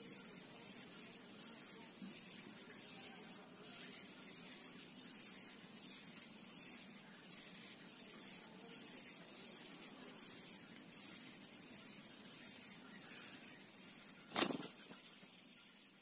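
A very high, thin tone pulsing evenly, a little more than once a second, throughout. A single sharp click comes about fourteen seconds in.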